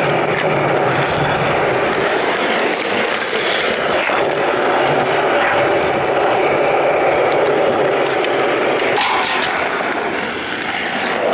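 Skateboard wheels rolling over rough asphalt, a loud steady rolling noise, with a few sharp clacks about nine seconds in.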